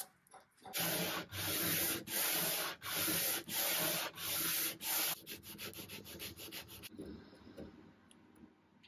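Hand sanding the edge of a solid mahogany dresser top with a sanding pad: steady back-and-forth strokes, about one and a half a second. About halfway through they turn lighter and quicker, then fade to faint scratching.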